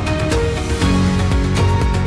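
Background music with a steady beat and sustained notes.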